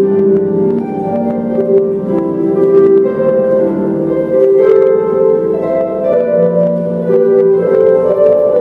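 A harp ensemble playing together: many plucked harp strings ringing over one another, with notes and chords changing about every half second.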